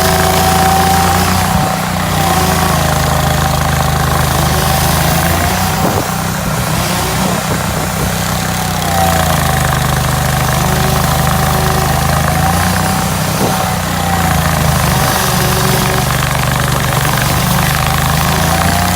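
Hydraulic stump grinder's engine running steadily while grinding a stump, its pitch dipping and recovering every few seconds as the cutter wheel takes load, with a whine that rises and falls along with it.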